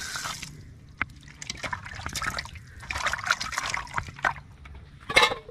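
Water running from a pipe into a steel bowl of raw chicken pieces, cut off about half a second in. After that, water sloshes and splashes in the bowl as hands rub and wash the chicken, with a louder splash near the end.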